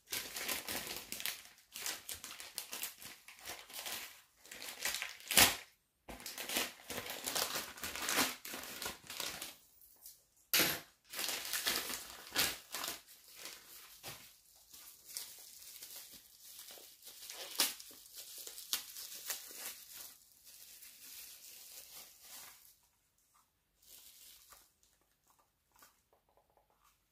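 Plastic packaging crinkling and rustling by hand: a plastic courier bag is torn open and bubble wrap is pulled off a wireless mouse. There are sharp snaps about five seconds in and again around ten and a half seconds, and the rustling dies down over the last few seconds.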